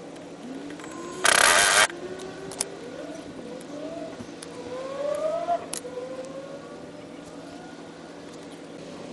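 A loud hiss, about a second in, lasting under a second, followed by a couple of sharp clicks. Under them a distant vehicle's engine rises in pitch again and again, dropping back each time, as if shifting up through its gears.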